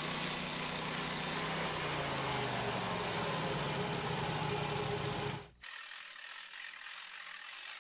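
Small engine of a portable band sawmill running steadily. It cuts off abruptly about five and a half seconds in, and a much quieter sound follows.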